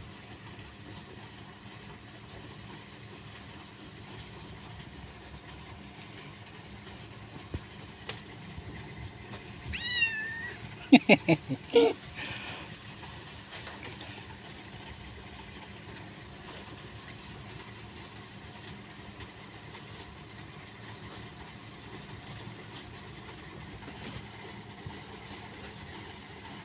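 Tabby kitten giving a short, high meow about ten seconds in, followed within the next two seconds by a few short, loud sounds close together, over a steady background hum.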